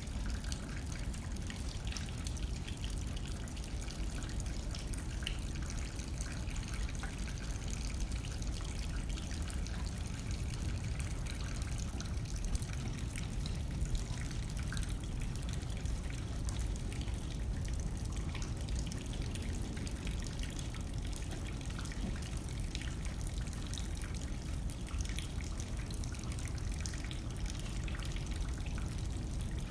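Steady rain hitting a window, many small drops ticking against the glass over a constant hiss, with light wind blowing as a low rumble underneath.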